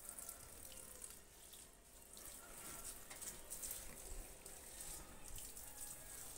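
Faint water running from a garden hose, splashing onto leaves and wet soil.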